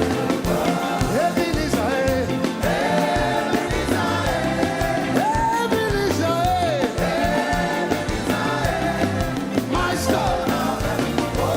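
Live upbeat gospel praise music: a band with a steady driving beat and bass, and voices singing over it.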